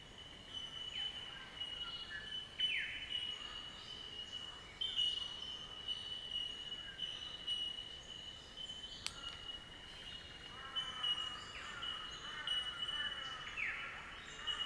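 Outdoor nature ambience: birds chirping and giving short falling whistles over a steady high-pitched drone, with a single sharp click about nine seconds in.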